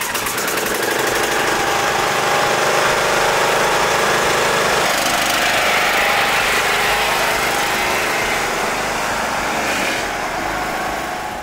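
Engine of a Craftsman riding lawn tractor running steadily, just after being started on choke.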